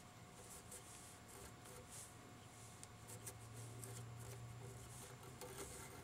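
Near silence: faint room tone with soft rubbing and small ticks as dubbing is twisted onto fly-tying thread and wrapped up a hook shank held in a vise.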